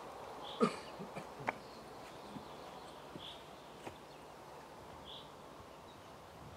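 Quiet outdoor ambience as a flower basket is set down: a thump and a few light knocks in the first second and a half. A bird gives a short high call about every two seconds.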